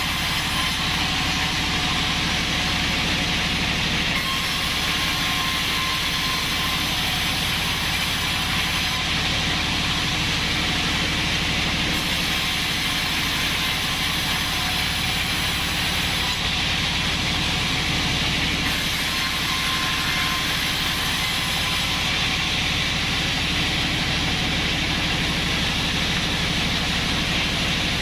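Band sawmill running steadily, its blade sawing through acacia wood with an even hiss over a low motor hum.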